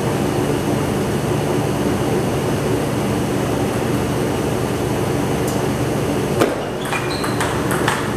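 Steady machine hum, with a quick run of sharp table tennis ball clicks near the end as a rally is played: paddle hits and bounces on the table.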